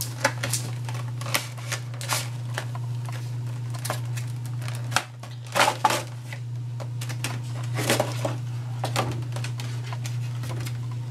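Clear plastic blister tray and trading cards being handled: irregular clicks, crinkles and rustles of thin plastic and card as cards are pulled out, with the busiest handling about halfway through and again near eight seconds. A steady low hum lies under it.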